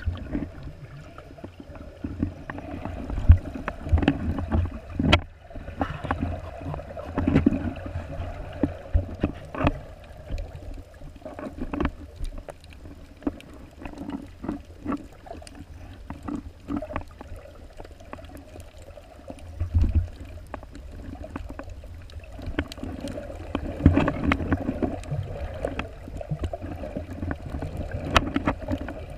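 Muffled underwater water movement heard through a submerged camera's waterproof housing while snorkeling: a low, uneven rumble and sloshing, with many scattered sharp clicks and knocks.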